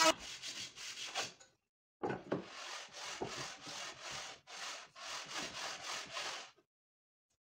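Hand plane run on its side along a shooting board, shaving the edge of a board in quick short strokes, about three a second, with a short pause after the first few.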